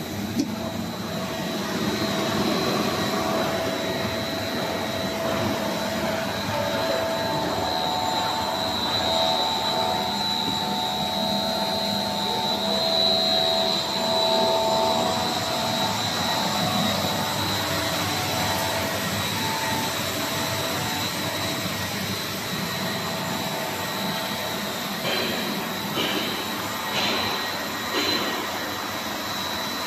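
HDPE/LDPE blown film extrusion line running: a steady whirring machine noise with a high whine. A few short clicks come a few seconds before the end.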